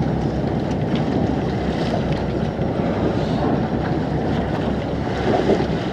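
Wind buffeting the microphone and sea noise aboard a boat at sea: a steady rushing, heaviest in the low range.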